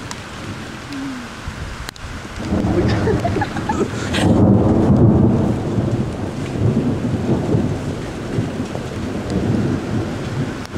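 Thunder rumbling over steady rain. The roll builds about two and a half seconds in, is loudest around four to five seconds, then keeps rolling more quietly.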